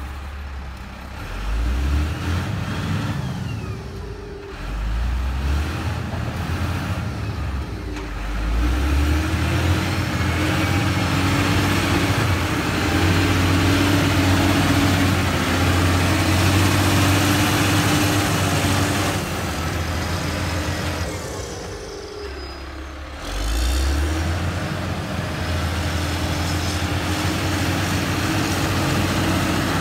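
Diesel engine of a LiuGong 4180D motor grader working under load as it grades wet soil, its revs rising and falling several times and easing off for a moment near the end.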